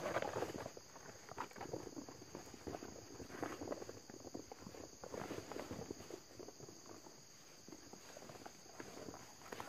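Rustling and crackling of a protective bee suit being pulled on, with shuffling steps on leaf litter, loudest in the first second. A steady high insect drone runs underneath.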